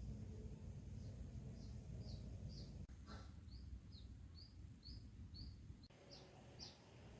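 Faint bird chirping: short high calls repeated evenly about twice a second, over low background noise.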